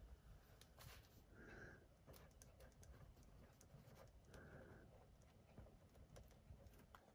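Near silence: faint scratching and small ticks of a pen writing on a sticky note, with two brief faint squeaks.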